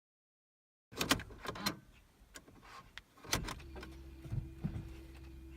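Sharp clicks and knocks of a car's key and controls being handled, then from about three and a half seconds in a steady electric hum with one steady tone: a 2011 Volkswagen Passat B7 1.4 TSI with its ignition switched on just ahead of a cold start.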